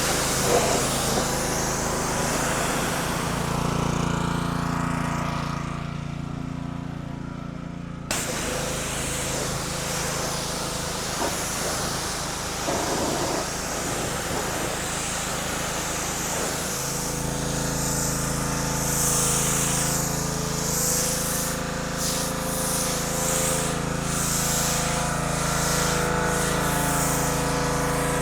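PowerSmart 3200 PSI pressure washer running steadily, with the hiss of its high-pressure water spray. The sound changes abruptly twice, about 8 and 17 seconds in.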